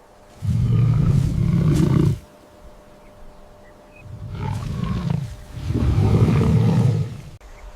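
A large wild animal roaring three times in deep, rough calls: one long roar about half a second in, then two more close together from about four seconds.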